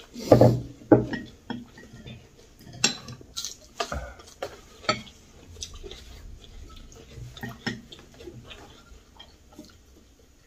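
Chopsticks and spoons clinking and tapping against ceramic bowls while eating: scattered light clicks, with the loudest knocks in the first second.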